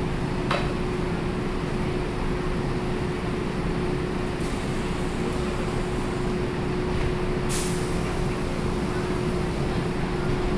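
Kintetsu charter train running with a steady rumble and a constant hum, with two short hisses of compressed air, a faint one about half a second in and a stronger one about seven and a half seconds in.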